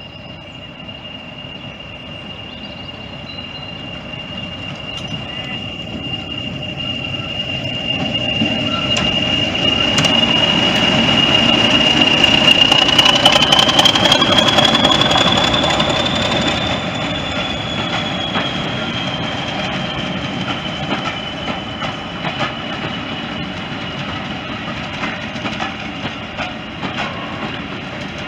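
BR Class 40 diesel-electric locomotive running slowly past with its engine working. The high steady turbocharger whistle these engines are known for rises briefly in pitch about halfway through and settles again as the locomotive passes. Its coaches then roll by with clicks over the rail joints.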